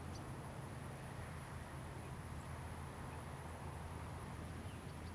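Quiet outdoor ambience: a steady low hum under a faint even hiss, with a thin, steady high-pitched tone.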